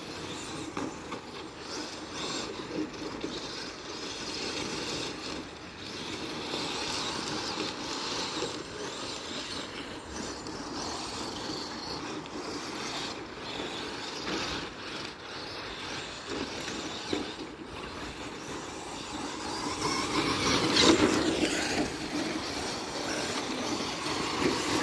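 Electric radio-controlled car running on a dirt track: motor and drivetrain whine with tyre noise on the dirt, rising and falling with the throttle and getting louder about 20 s in as the car comes nearer.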